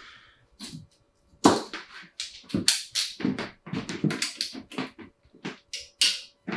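Irregular run of sharp clicks and clanks from hand tools and engine parts being handled during an engine teardown, the loudest about a second and a half in.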